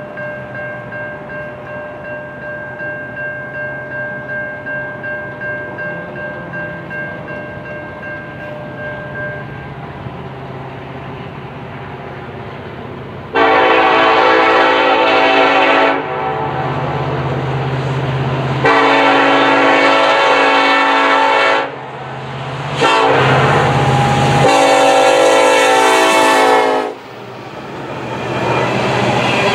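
Norfolk Southern SD70ACe diesel locomotive's horn sounding three long blasts as the coal train approaches, after a steady distant rumble of the oncoming train. Near the end the rumble of the locomotives and loaded coal hoppers grows louder as they pass close by on the rails.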